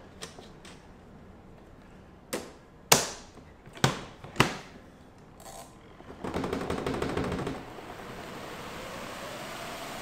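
Twin-tub portable washing machine: four sharp plastic knocks as the spin-tub cover and lid are shut, then a rapid ratcheting for about a second and a half as the spin timer knob is wound. The spin dryer motor then starts, a steady whir whose pitch rises as the drum spins up.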